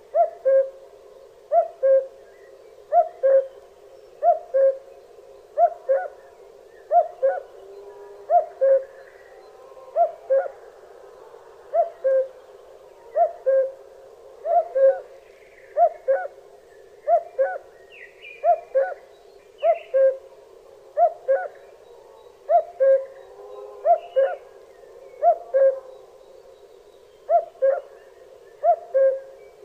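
Common cuckoo calling its two-note "cu-ckoo", the second note lower than the first, repeated steadily about once every one and a half seconds.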